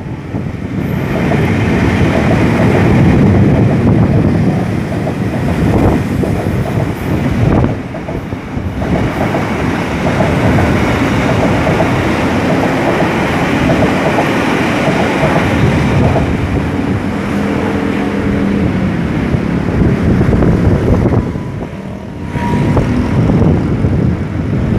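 Commuter electric multiple-unit train running past on the tracks below: a loud, steady rumble of wheels on rail with some clickety-clack, dying away near the end as the last cars go by.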